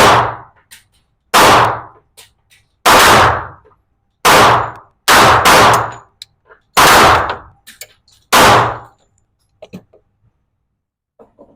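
Seven pistol shots from a Glock 21SF .45 ACP handgun, fired at an unhurried pace about one to one and a half seconds apart, each with a short ringing echo. A few faint clicks follow after the last shot.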